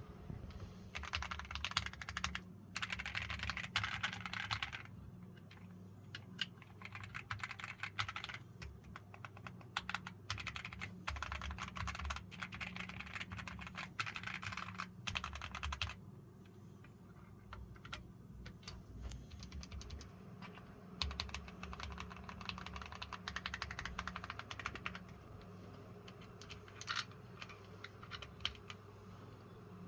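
Keychron Q1 Max aluminium-body mechanical keyboard being typed on in fast runs of keystrokes, with short breaks about five, sixteen and twenty-five seconds in. A faint steady low hum runs underneath.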